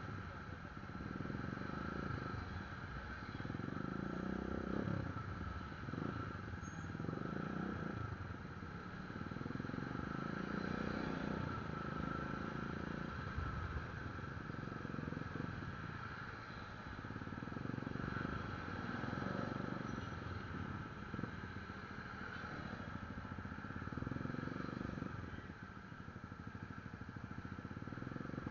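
Motorcycle riding in slow road traffic: a continuous engine and road rumble that swells and fades every few seconds, with a steady higher hum above it.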